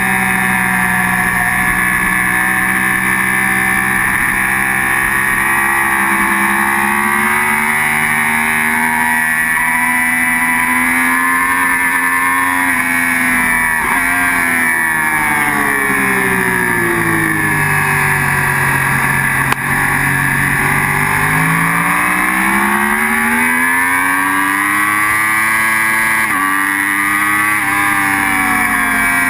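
Sport motorcycle engine at high revs heard from onboard, with wind rush. Around the middle the engine note falls away over several seconds and then climbs again as the rider gets back on the throttle, with a gear change near the end.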